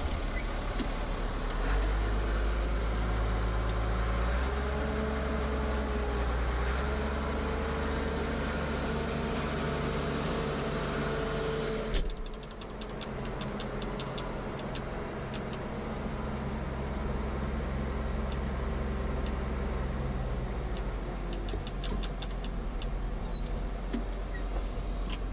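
Diesel tractor engine heard from inside the cab as the tractor is driven into the shop, its note rising and wavering under way. About halfway through there is a sharp click, and the engine drops to a quieter, lower steady idle, with faint clicks near the end.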